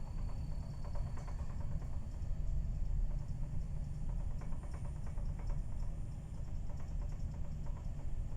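Steady low rumble of ambient noise at sea, with scattered faint crackles and a thin, steady high whine.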